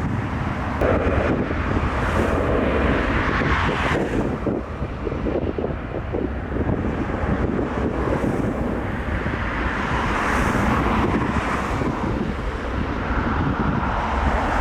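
Wind buffeting the microphone over the steady rumble of a jet airliner's engines, with gusty swells throughout.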